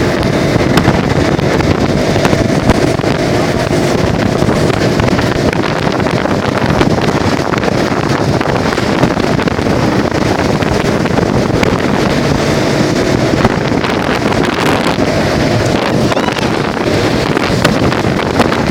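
Motorboat engine running steadily while under way, with wind buffeting the microphone.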